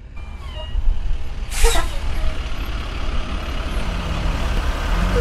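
Semi-truck sound effects: a low diesel engine rumble that builds up, with a brief falling squeal near the start and a short air-brake hiss about one and a half seconds in.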